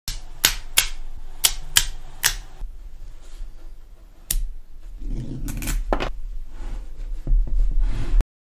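Small magnetic balls clicking sharply against each other as the ball cubes are handled. About six quick clicks come in the first two and a half seconds, then a few more, spread out.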